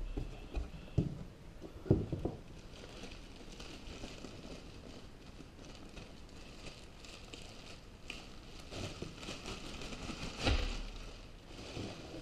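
Clear plastic wrapping crinkling and rustling as a fabric camera shoulder bag is pulled out of it, with a few knocks near the start. About ten and a half seconds in, a heavier thump as the bag is set down on a wooden desk.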